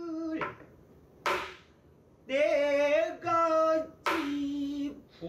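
Pansori singing: one voice holds long notes with a wavering vibrato from about two seconds in. Sharp stick strikes on a buk barrel drum fall between the phrases.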